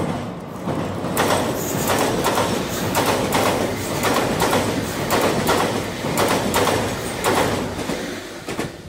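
Electric train running past: a rumble with a rapid run of clattering strokes as the wheels cross rail joints. It swells about a second in and fades near the end.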